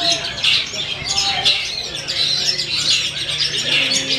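Long-tailed shrike (cendet) singing a dense, unbroken run of rapid chirps and twitters.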